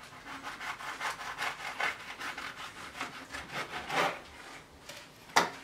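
Serrated knife sawing back and forth through a baked strudel onto a wooden cutting board, a rasping scrape about four strokes a second, with a stronger stroke about four seconds in. A sharp knock near the end.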